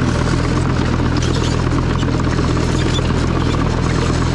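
Fiat 88-85 tractor's diesel engine running steadily under load as it pulls a disc harrow through the vineyard soil, heard from the driver's seat.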